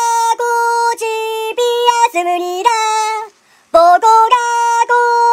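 High-pitched singing voice holding a string of steady notes, with a short break about three and a half seconds in.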